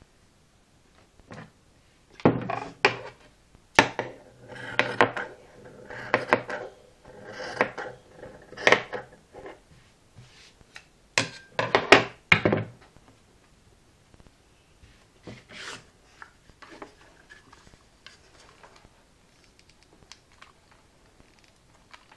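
A run of irregular rubbing and scraping sounds with a few sharp clicks, busiest and loudest in the first half and turning faint and sparse after that.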